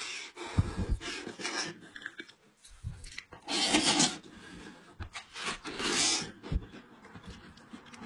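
Close-miked eating sounds: meat being pulled by hand from a cooked goat's head in a wet, spicy sauce, with chewing and mouth sounds and two louder noisy bursts a little past the middle.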